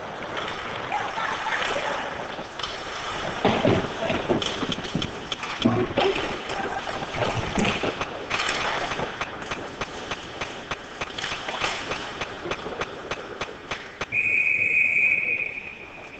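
Ice hockey play: sticks clacking, skates scraping and hard knocks of bodies against the boards and glass, with spectators' voices. About fourteen seconds in, a referee's whistle blows once for just over a second to stop play.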